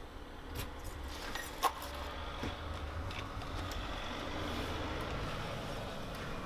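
Steady low rumble of outdoor urban ambience, like distant traffic, with a few small clicks and knocks from an apartment door's lock and handle as it is unlocked and opened. The sharpest click comes about a second and a half in.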